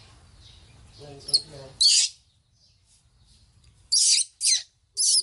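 Newborn baby monkey giving short, high-pitched squealing cries, one about two seconds in and three in quick succession near the end, as it is rubbed dry in a cloth.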